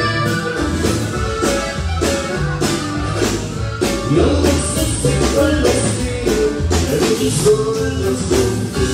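Norteño band playing live, with accordion, guitar, bass and drums to a steady beat, and a singer on vocals.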